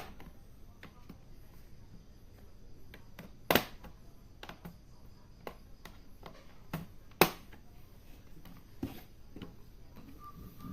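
Plastic snap clips of an HP 14s laptop's bottom case clicking loose as a plastic card pries the case open: sharp clicks, the loudest about three and a half and seven seconds in, with fainter ticks between.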